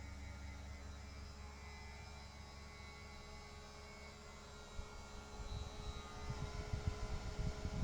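A steady low electrical hum. About five seconds in, irregular low thumps and rumbles join it and grow louder.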